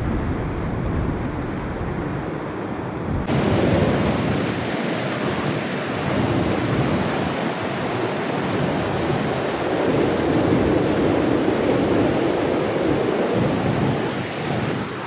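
Steady rush of flowing river water, a dense even noise with no bird calls heard. About three seconds in it turns abruptly brighter and a little louder.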